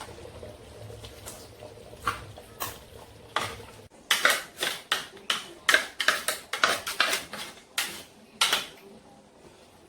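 A spoon knocking and scraping against a cooking pot as cassava leaf is stirred into it. There are a few scattered clinks, then a quick run of loud clatters from about four seconds in.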